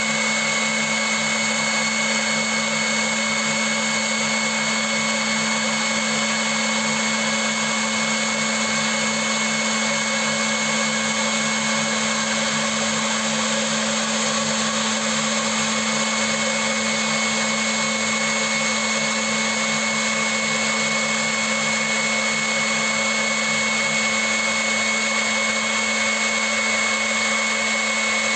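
CNC milling machine running steadily: an even mechanical noise carrying a constant high whine over a low hum.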